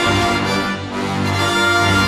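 Orchestral film theme music with sustained brass and strings over a steady low note.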